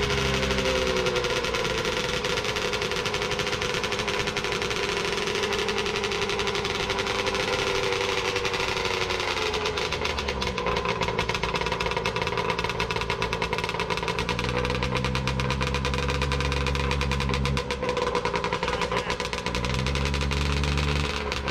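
Ski-Doo twin-track race sled's two-stroke engine running with a fast, rough firing. The revs sink in the first second, then are raised and let back down about twice in the second half.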